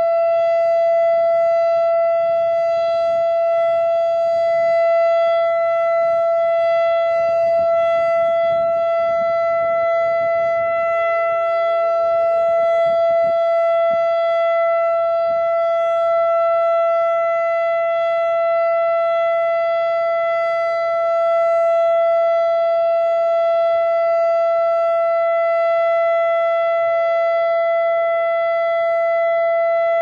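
ACA Quadren outdoor warning siren sounding a steady Alert tone, one held pitch at an even level. Fainter tones glide up and down underneath it.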